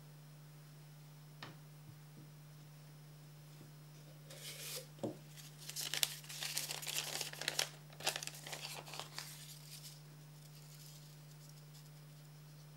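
Crumpled photographic paper crinkling and crackling in quick bursts as it is unfolded and smoothed flat by hand, from about 4 s to 10 s in, with a light knock just before the loudest part. A faint steady electrical hum runs underneath.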